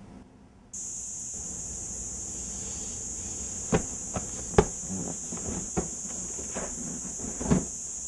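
A cicada's shrill, steady buzz starts suddenly a little under a second in and keeps on. Several knocks and thumps fall over it in the second half, the loudest about halfway and near the end.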